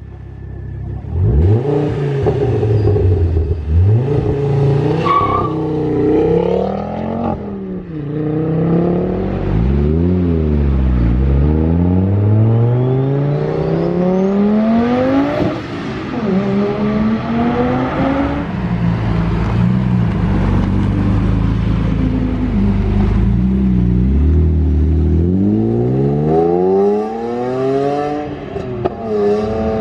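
Sports car engines accelerating hard, revving up through the gears: the pitch climbs, drops sharply at each upshift and climbs again, several times over.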